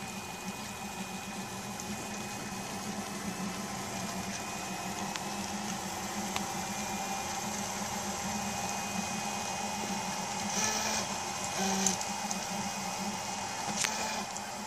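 Prusa Mendel i2 3D printer printing, its stepper motors humming and whining in shifting tones as the print head and bed move back and forth. A few short, louder noises come near the end.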